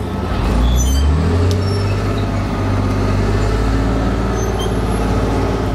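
Chieftain tank's Leyland L60 multi-fuel diesel engine running loud, revving up about half a second in and then holding at high revs as the tank starts to move.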